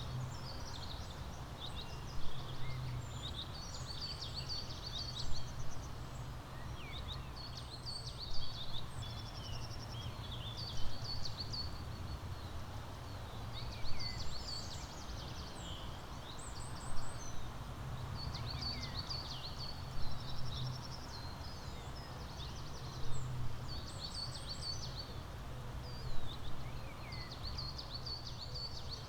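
Songbirds chirping in short bursts of quick notes that come about every three seconds, over a steady low background rumble.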